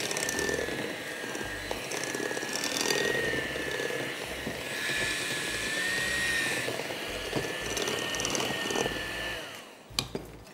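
Electric hand mixer running with a steady, slightly wavering whine as its beaters whip chocolate frosting made with icing sugar and cocoa powder in a glass bowl. Near the end it is switched off and winds down, followed by a few clicks.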